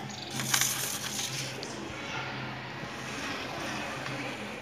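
Rustling, crackling handling noise during the first second or so, over a faint low steady hum.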